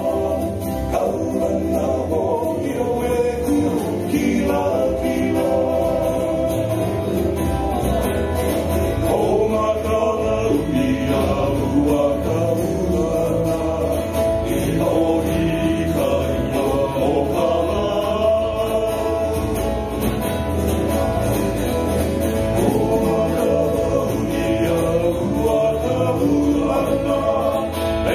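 Live Hawaiian band playing and singing without a break: upright bass, ukulele and acoustic guitar under a lead singer with group vocals.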